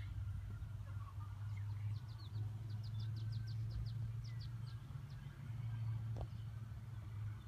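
A small bird gives a quick run of about a dozen short, high chips over two to three seconds, roughly four or five a second. Underneath is the steady low hum of an idling vehicle engine. There is a single soft knock about six seconds in.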